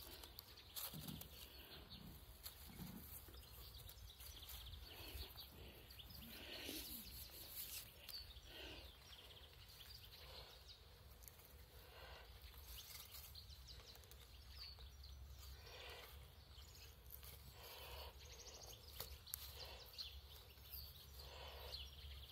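Near silence, with faint scattered rustles and scrapes as a cord is wrapped around three wooden sticks in grass.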